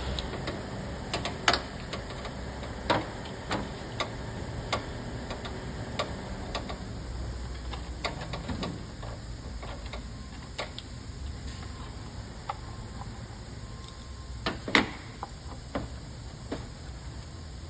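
Scattered clicks and knocks of hand tools on metal as the small 8 mm bolts holding an engine-bay shield are undone. Irregular, a few every couple of seconds, with a sharper knock about three-quarters of the way through.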